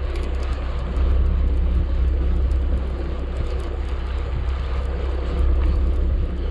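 Steady low rumble of the boat's motor and wind buffeting the microphone while line is cranked in on a conventional saltwater reel, with faint scattered clicks.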